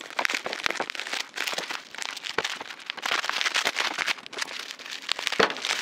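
Plastic bubble wrap crinkling and crackling as it is cut with scissors and pulled away by hand, in dense irregular rustles and clicks.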